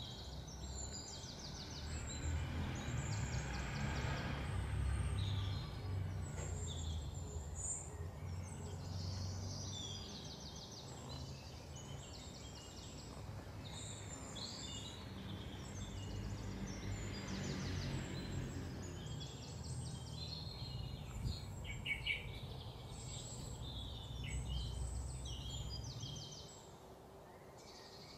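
Small birds chirping in short rapid repeated calls over a steady low rumble of outdoor background noise; the rumble drops away near the end.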